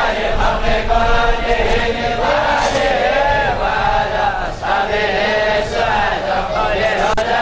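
Voices chanting a melodic religious-style chant, the pitch rising and falling in long, drawn-out phrases.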